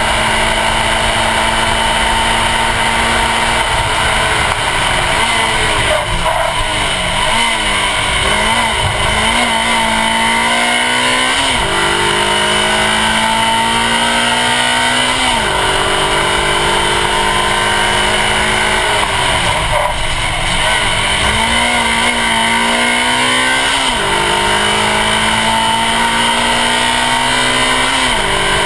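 Suzuki Swift Sport rally car's engine driven hard through the gears, heard from a bumper-mounted camera. The revs climb and drop back at each upshift, several times. Early on the engine slows and the revs waver before it pulls up again, all under heavy wind and tyre noise.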